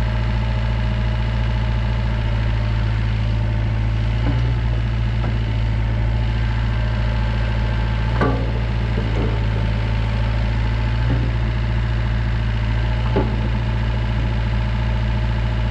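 Diesel engine of a Volvo ECR88 midi excavator idling steadily, with a few brief knocks over the steady running.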